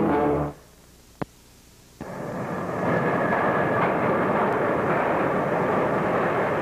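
Subway train running: a steady, loud noise that cuts in abruptly about two seconds in, after a brief hush broken by a single click.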